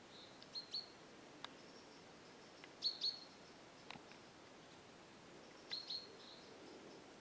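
A bird calling: a short, high chirped phrase repeated three times, about every two and a half seconds, over a faint steady background hiss.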